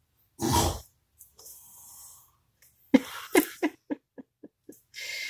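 A man snoring in his sleep: one big, rough snore about half a second in, followed by a softer breath. About three seconds in comes a quick run of short pulses that grow fainter.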